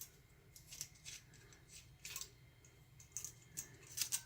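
Faint, irregular clicks and clinks of small metal screwdriver bits being handled and sorted in a small screwdriver set. They come as a few light taps spaced unevenly, a little more often near the end.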